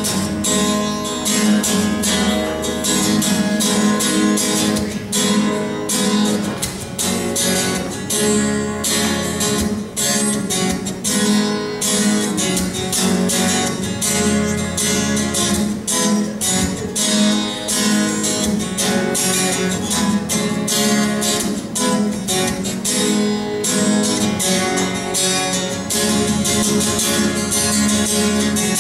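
Solo acoustic guitar strummed in a steady, busy rhythm, an instrumental break with no singing.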